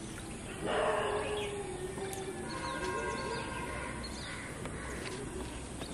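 Rural outdoor ambience with small birds chirping. A louder drawn-out sound falls slightly in pitch for about a second, near the start.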